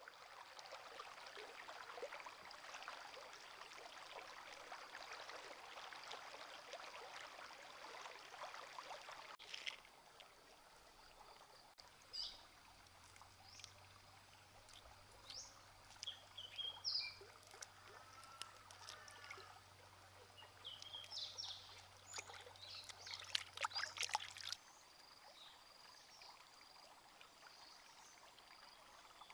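Faint shallow stream flowing, then hands washing something in the water, with irregular splashes and trickling and a few short bird chirps in the middle stretch. The splashing stops near the end, leaving the quieter stream.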